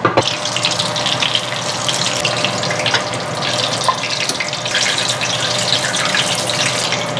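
Hot oil sizzling and crackling steadily as pastel turnovers shallow-fry in a cast-iron skillet.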